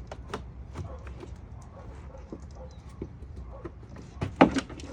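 Scattered clicks and knocks of hard plastic parts being worked loose, with a louder cluster of clunks near the end: the engine air box being pulled out of the engine bay.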